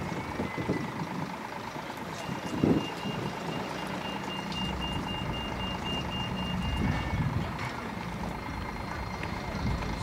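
A reversing alarm beeping in a quick, evenly spaced run for about five seconds, over a low rumble and wind buffeting the microphone.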